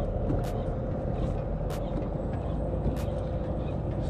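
Steady wind rumble on the microphone while a spinning reel is cranked to retrieve a lure, with a short sharp tick repeating about every second and a quarter.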